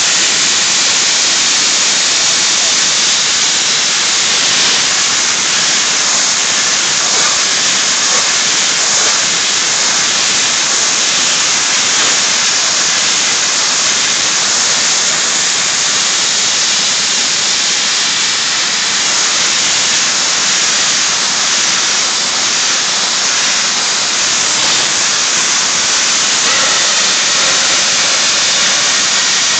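Soda-blasting nozzle hissing steadily as compressed air drives sodium bicarbonate media against a stainless steel heat exchanger plate, stripping the scale from its ridges.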